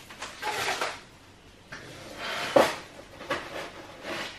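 Thin plastic bag rustling in several short bursts as things are put into it, with one sharp knock about two and a half seconds in.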